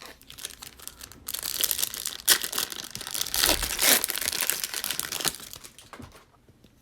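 Foil wrapper of a Topps Chrome baseball card pack being torn open and crinkled, a dense crackling that starts about a second in and dies away near the end.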